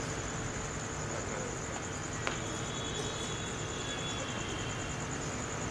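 Steady high-pitched trilling of crickets over faint hall noise and a low hum, with a single sharp knock about two seconds in.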